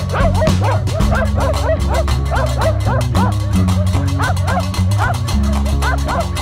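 Hunting laikas barking in a rapid string, about two or three barks a second, baying at a bear. Background music with a steady beat and bass plays underneath.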